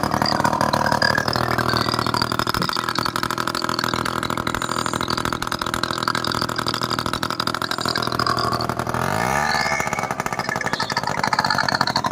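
TVS Scooty ES two-stroke scooter engine running with its choked silencer opened up, firing steadily and then revving up about nine seconds in. It now runs and revs freely: the blocked silencer was what had stopped it starting and picking up.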